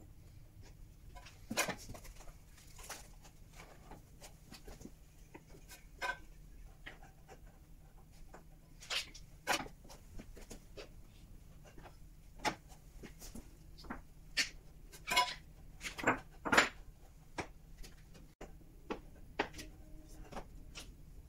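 Brick pavers knocking and clacking as they are lifted and set down on a rack, in a dozen or so irregular sharp knocks, the loudest about two-thirds of the way through.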